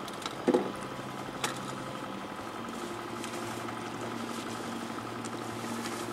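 Fishing boat's engine running steadily at idle, a low even hum. A brief sharp knock about half a second in and a fainter click about a second later.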